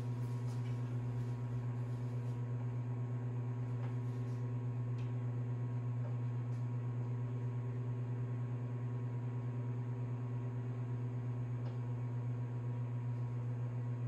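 Sharp Carousel SMC0710BW 700-watt countertop microwave oven running while heating food: a steady low electrical hum with a slight fast wavering in level.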